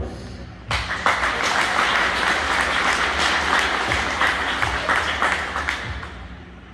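Audience applauding: a burst of many hands clapping starts suddenly about a second in and dies down near the end.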